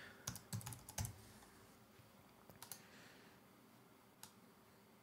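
Faint typing on a computer keyboard, a quick run of keystrokes in the first second and a half, followed by a few scattered clicks, one of them a mouse click about four seconds in.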